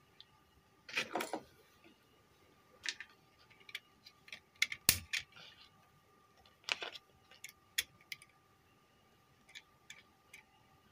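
Scattered light clicks and knocks as multimeter test probes and their leads are handled and touched against the screw terminals of a switch-mode power supply board, over a faint steady tone.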